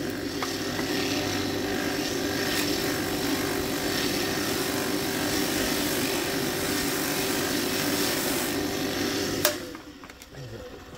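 Old grinder's electric motor, converted to drive a stitched sisal buffing wheel at about 2850 rpm, switched on and running steadily with a hum and a hiss, while a black bar is pressed against the face of the spinning buff. About nine and a half seconds in it is switched off with a click and winds down.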